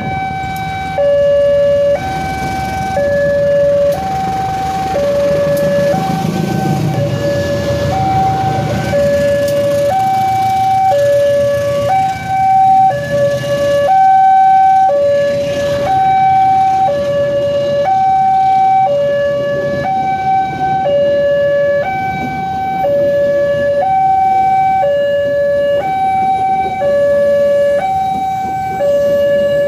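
Indonesian railway level-crossing alarm, an electronic two-tone signal alternating between a higher and a lower tone about once a second. Under it, a passenger train rumbles past the crossing, loudest a few seconds in.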